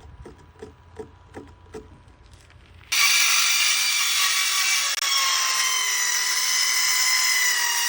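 Electric power tool motor whining steadily as it works wood, starting abruptly about three seconds in, its pitch sagging a little under load. Before it come a few light taps, about two or three a second.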